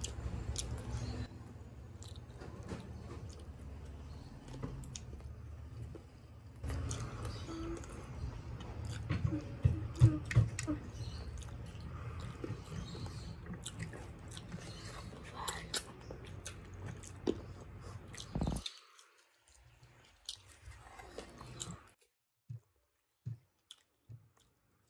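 Close-miked chewing and biting of chicken and rice eaten by hand, with wet mouth clicks and occasional crunches, loudest about ten seconds in. About three-quarters of the way through the sound drops away, leaving only a few faint clicks.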